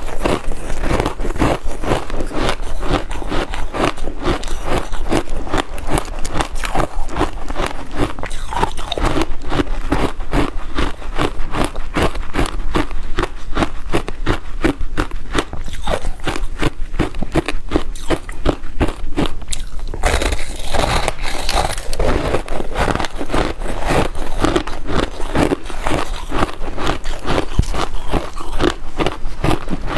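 Close-miked crunching of frozen passion fruit pulp ice, bitten and chewed in a steady run of rapid sharp crunches. A louder, denser stretch of crunching comes about two-thirds of the way through.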